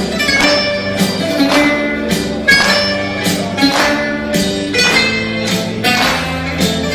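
Background music with a steady beat and plucked instruments.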